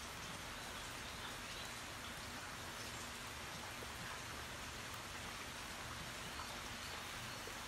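Steady rain falling on trees and ground, with scattered individual drops tapping.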